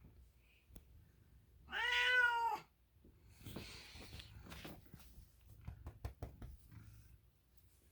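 An American Ringtail cat gives one meow about a second long, about two seconds in, its pitch rising then falling. It is followed by soft rustling and light clicks.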